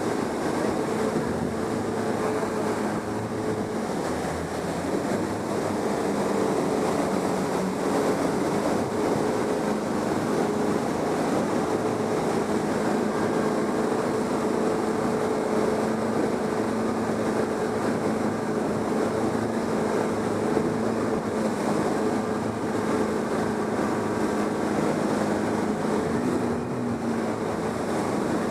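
A motor running steadily at one even pitch over a continuous rush of water.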